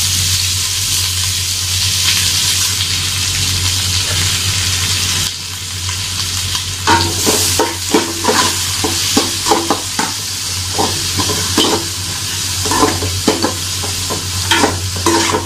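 Sliced onions sizzling in hot oil in a metal pot. From about seven seconds in, a metal spatula scrapes and clicks against the pot as the onions are stirred.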